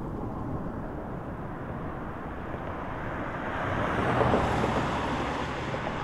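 Outdoor ambient noise: a steady rushing sound that swells to a peak about four seconds in and eases off again, as of something passing.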